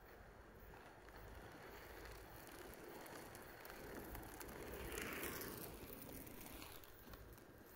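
Inline skate wheels rolling on rough asphalt, growing louder as the skater approaches, passing close by about five seconds in, then fading away.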